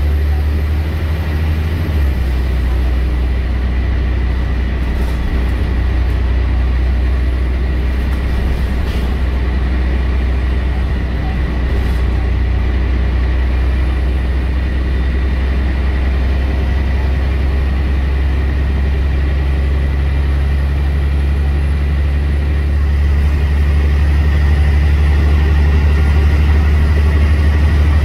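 Scania L113CRL bus's 11-litre Scania diesel engine running with a steady low drone and a thin steady whine above it, growing louder about 23 seconds in.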